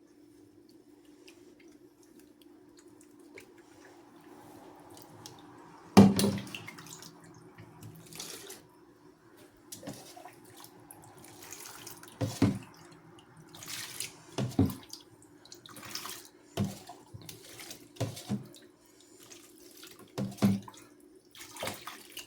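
Water splashing in a sink during a puppy's bath: a steady low hum at first, then from about six seconds in a string of short splashes about every two seconds, the first the loudest.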